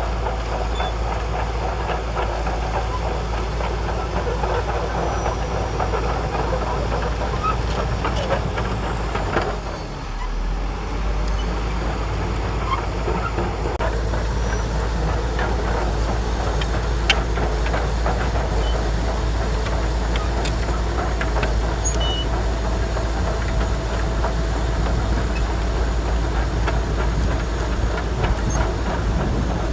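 Shantui DH17C2 crawler bulldozer working: its diesel engine running steadily under load with the clank and clatter of the steel tracks, dipping briefly about a third of the way through.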